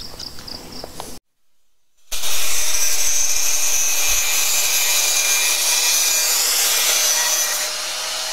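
Faint insect chirping, then after a brief dropout a handheld power tool starts suddenly about two seconds in and runs steadily against metal, grinding paint off down to bare metal.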